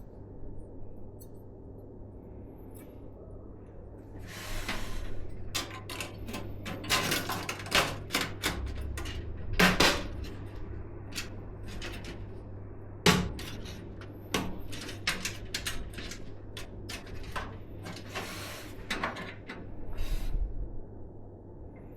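Hands handling computer parts during a PC build: a string of small plastic and metal clicks and taps, with two sharper knocks about ten and thirteen seconds in. There are bursts of rustling, like packaging, over a low steady hum.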